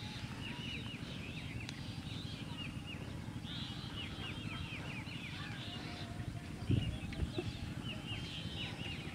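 Birds chirping in quick runs of short, falling notes, over a steady low rumble. A dull thump about two-thirds of the way through.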